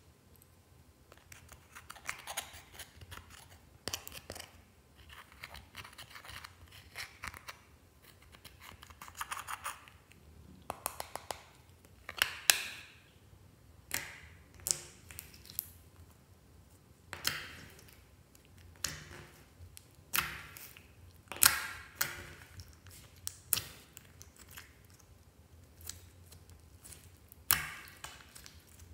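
Clear slime being worked by hand with crumbled green makeup: fine crackling at first, then a string of sharp sticky pops and squelches as the slime is pressed and kneaded.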